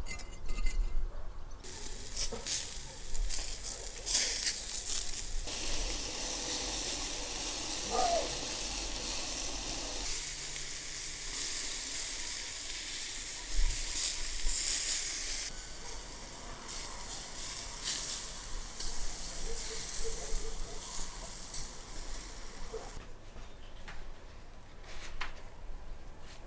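Skewered ground-lamb lula kebabs sizzling over hot charcoal, a crackling hiss that comes in several stretches of changing loudness and stops about 23 seconds in.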